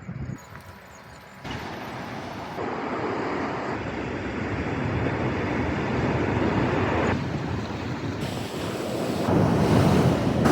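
Ocean surf washing and breaking, with wind buffeting the microphone. The noise steps up suddenly about a second and a half in and grows louder toward the end.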